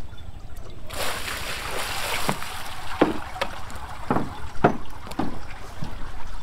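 Water poured from a bucket splashes over a fish lying on a mat, a rushing splash lasting about a second and a half. Then the bucket is set down with a knock, and footsteps thud on wooden decking about twice a second.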